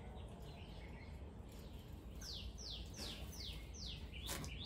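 A bird calling a fast run of short notes, each dropping in pitch, about three a second, starting about halfway through. A single knock near the end.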